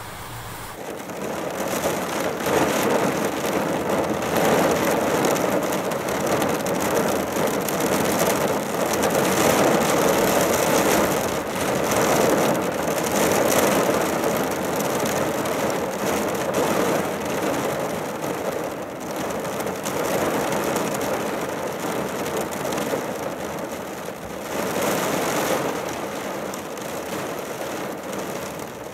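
Heavy rain drumming on a car's roof and windscreen, heard from inside the car as a dense, steady patter that grows louder about a second in.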